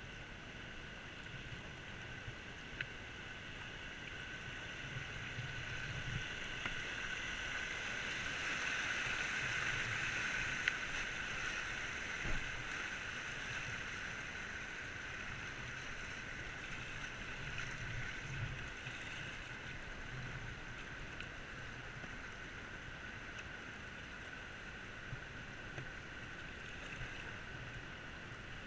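River water rushing and splashing around a kayak as it runs a shallow rapid, swelling to its loudest about a third of the way through and then easing off, with a few faint clicks.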